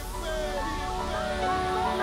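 Background music, a melody of sliding notes over a steady low bed.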